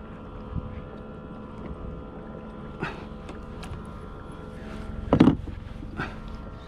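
A few knocks and clicks as a spinning reel and rod are handled aboard a plastic sit-on-top kayak, the loudest a thump about five seconds in, over a steady hum.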